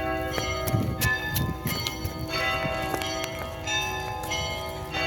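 Church bells of several pitches being rung. Frequent strikes overlap one another's long ringing tones.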